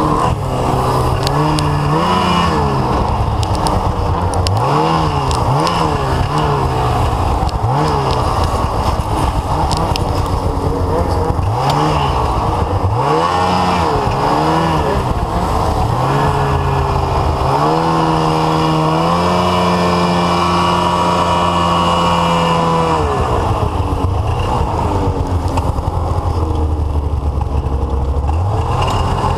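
Ski-Doo snowmobile engine being ridden along a snowy trail, revving up and down over and over, then held at a high steady pitch for several seconds before dropping to a lower drone and revving up again near the end.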